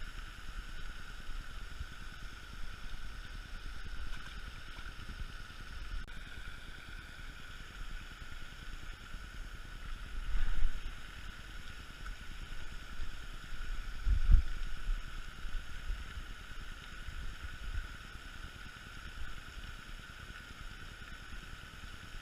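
Outdoor ambience: wind rumbling unevenly on the microphone under a steady high-pitched drone, with two heavier bumps, one about ten seconds in and one about fourteen seconds in.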